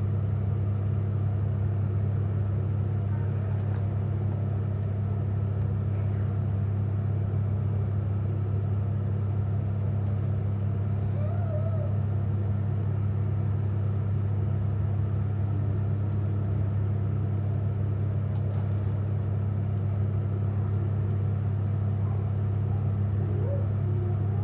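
A steady, loud low hum with an unchanging pitch.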